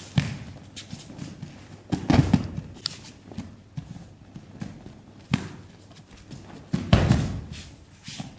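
Bodies hitting the mats as an aikido partner is thrown and takes breakfalls and rolls. There are heavy thuds about two seconds in and again about seven seconds in, with lighter slaps and footfalls on the mat between them.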